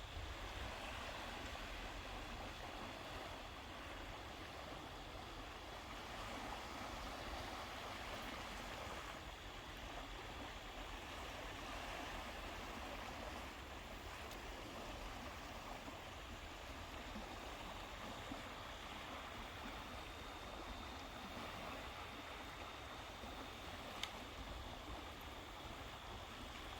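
Steady wash of Lake Ontario waves breaking along the shore, a low even hiss with a little wind rumble on the microphone. A single faint click near the end.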